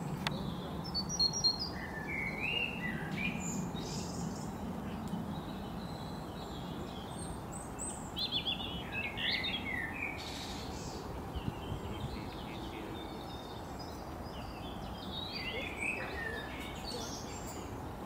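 Several small birds chirping and singing in short scattered phrases, busiest around the middle and near the end, over a steady low background hiss of outdoor noise.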